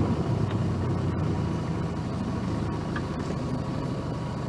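An engine idling steadily with an even low hum.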